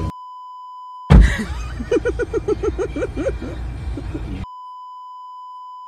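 A steady electronic censor bleep, then a loud sudden thump and a burst of rapid rhythmic laughing of about nine quick 'ha' pulses, then the same bleep tone again.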